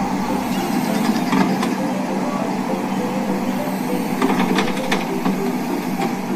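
Kobelco crawler excavator's diesel engine running steadily, with a few sharp metallic clanks about a second in and again around four to five seconds in.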